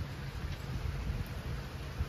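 Wind buffeting the phone's microphone: a low, unsteady rumble over a soft, even hiss.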